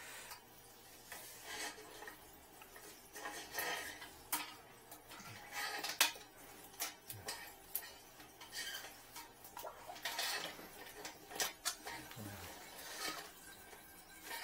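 Thin metal wire tapping and scraping against a porcelain toilet bowl and its trap, in irregular clicks and clinks, while it is worked in to fish out disposable contact lenses clogging the toilet.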